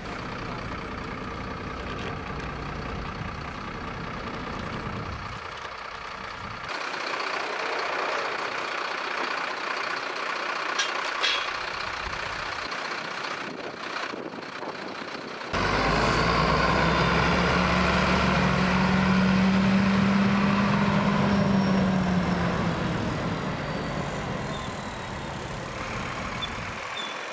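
Flatbed tow truck's diesel engine running while a car is loaded onto its tilted deck, with road traffic passing. The sound changes abruptly a few times and grows louder a little past halfway, with a steady low hum.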